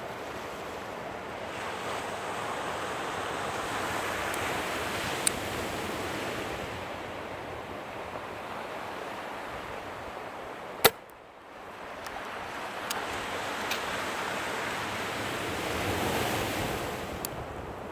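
Surf washing on a beach with wind on the microphone. About eleven seconds in, a single sharp crack, the loudest sound here: a shot from a .22 Webley Hurricane spring-piston air pistol. Fainter clicks come a few times around it.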